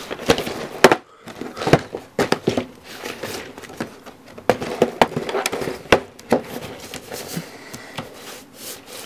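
Cardboard advent calendar box handled by hand: irregular taps, scrapes and rustles of fingers and palms on the card as it is turned over.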